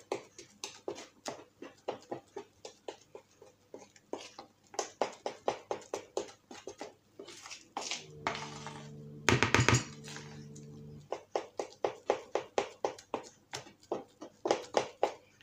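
A spoon beating thick pancake-like batter in a bowl by hand, clicking against the bowl in a quick regular rhythm of about three to four strokes a second. About eight seconds in, the beating gives way for about three seconds to a steady hum, with a brief loud sound in the middle of it.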